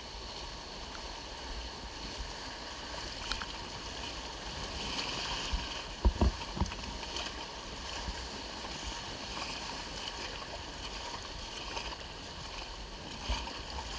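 Steady water and wind noise on a river raft, with a few low knocks about six seconds in.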